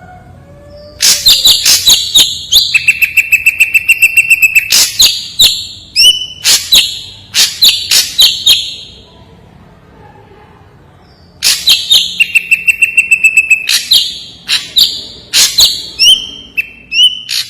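Ashy drongo singing in two bouts. Each opens with a fast, even run of clear repeated notes, then a string of loud, sharp, separate whistled notes, with a pause of a couple of seconds between the bouts.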